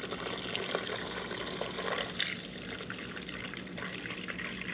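Evapo-Rust rust remover poured in a steady stream from a gallon jug into a small plastic tray, splashing over a steel brake caliper half as it fills the tray. The splashing gets a little thinner about two seconds in.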